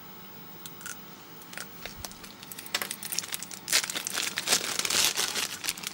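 Thin clear plastic bag crinkling as a battery charger is unwrapped from it: a few light clicks at first, then dense crackling through the last three seconds.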